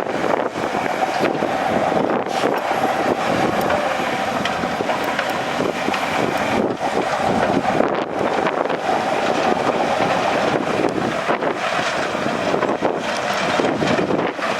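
Heavy diesel earthmoving machinery running steadily, a constant engine tone with irregular knocks and rattles over it.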